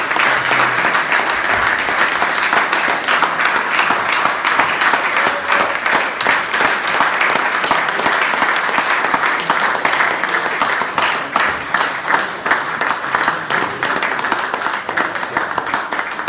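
Audience of diners applauding steadily in a hall as an award winner is called up, dense clapping that continues throughout and begins to thin only at the very end.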